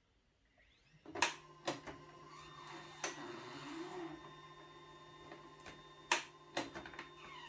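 HP LaserJet 5L laser printer starting a print cycle: its motor and fan start running about a second in with a steady hum and whine, and its mechanism gives several sharp clicks, the loudest about a second in and about six seconds in.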